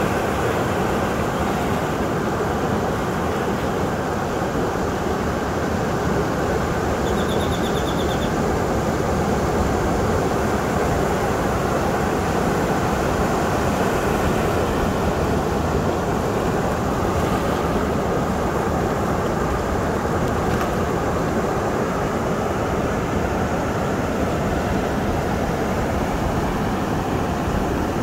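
Steady surf: waves breaking just offshore and washing in over a flat volcanic rock shelf, a continuous even rushing without pauses.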